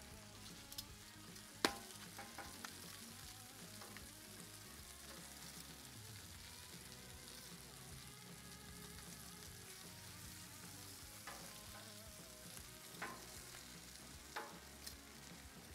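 Faint steady sizzle of butter-filled, foil-wrapped corn cooking on a hot Blackstone steel griddle top, with a few sharp clicks of metal tongs against the foil and the griddle as the ears are turned.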